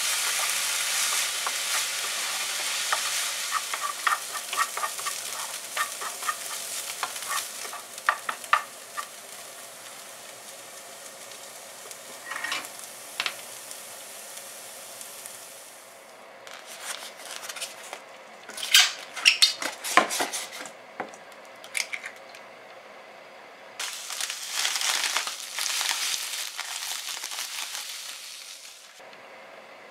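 Chopped onion sizzling in a nonstick frying pan, stirred and scraped with a wooden spatula; the sizzle dies down after about nine seconds. Later come scattered clinks and knocks, and near the end a rustling pour as breadcrumbs slide from a bag into a steel mixing bowl.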